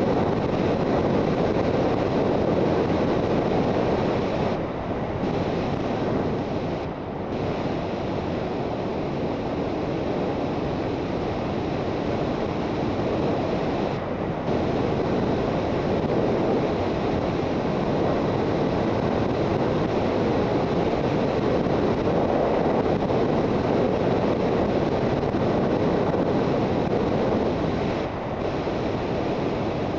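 Wind rushing over the microphone of a Suzuki GSX650F motorcycle under way, a steady roar with the bike's engine underneath. The roar briefly dips four times.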